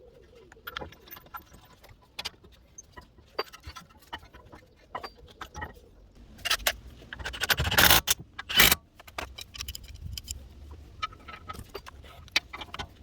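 Metal tools and brake parts clinking and knocking against each other, with a louder scraping rattle about seven seconds in that ends in a sharp metallic clank.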